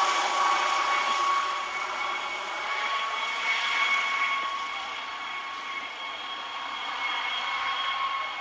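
Air ambulance helicopter flying over and moving away: a steady rushing engine noise with a high turbine whine, slowly fading.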